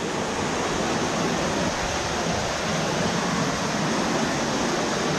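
Water pouring through an opening in the rock into a flooded tunnel: a small waterfall giving a steady, unbroken rush.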